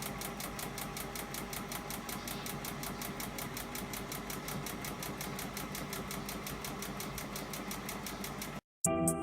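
Hotpoint washing machine making a fast, even run of clicks before its spin, cutting off abruptly near the end. The clicking is the fault that a carbon brush change on the motor is meant to cure, a sign of worn motor brushes.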